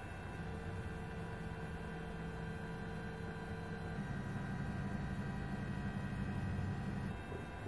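3D food printer's stepper motors whining steadily as the print head traces a triangle, the pitch stepping to a new tone at each change of move, near the start, about halfway and near the end.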